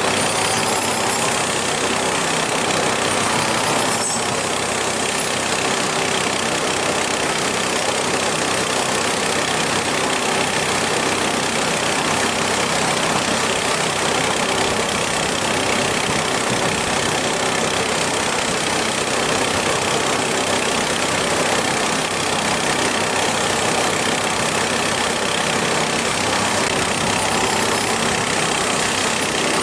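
An engine running steadily at a constant speed, with a dense, even mechanical noise.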